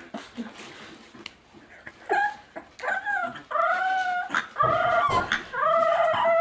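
English bulldog puppy howling: after a quiet start, about five short, high, wavering howls, growing longer and louder toward the end.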